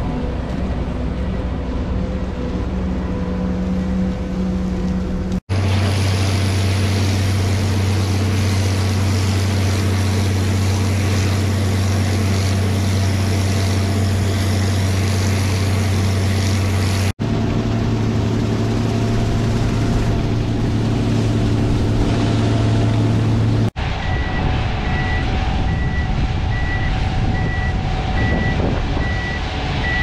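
Gleaner combine harvesters running while harvesting, in several clips cut together: a steady machine drone of engine and threshing gear whose pitch changes at each cut. In the last part a high beep repeats about twice a second, like a machine's warning alarm.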